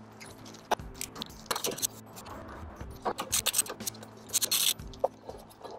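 A small socket wrench working the 10 mm bolts of a Briggs & Stratton Intek engine's plastic top cover: scattered metal clicks and scrapes, with a longer rasping scrape about four and a half seconds in.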